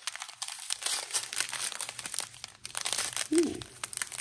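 Clear plastic zip bags of diamond-painting drills crinkling in the hands as they are turned over and handled, a dense, irregular run of crackles.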